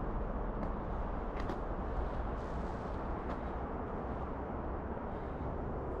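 Steady low rumbling outdoor noise in a snowy forest, with a few faint, sharp clicks about one and a half seconds and three seconds in.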